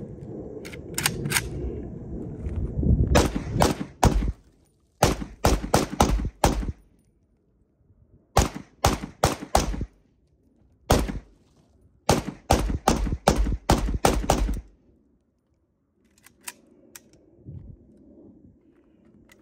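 AK-style rifle fired in quick strings of shots, several a second, with a pause of a second or two between strings.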